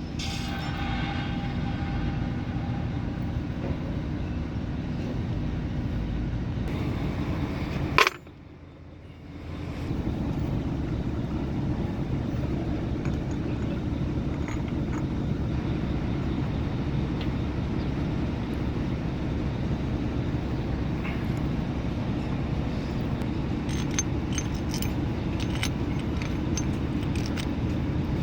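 Mercedes Actros MP2 truck's diesel engine running steadily. About eight seconds in there is a sharp click, the sound drops away for about two seconds, then the engine is heard running again.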